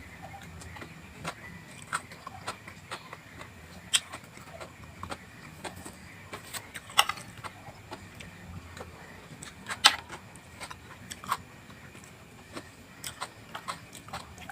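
Mouth noises of someone eating vegetables: irregular crisp crunches and clicks of biting and chewing, the two loudest about seven and ten seconds in.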